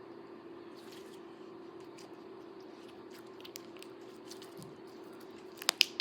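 Silver-blue slime squished and worked by hand, with faint scattered crackles and then two sharp pops close together near the end.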